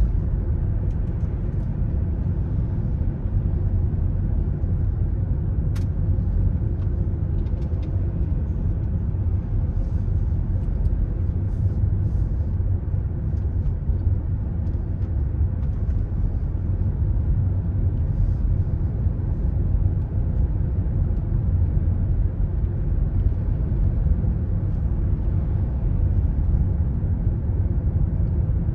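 Steady low rumble of a car driving, engine and road noise, with a few faint clicks and one sharper click about six seconds in.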